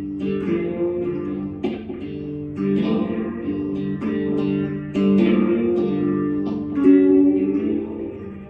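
Guitar playing: plucked notes and ringing chords, a new one struck about every second, over a low held note.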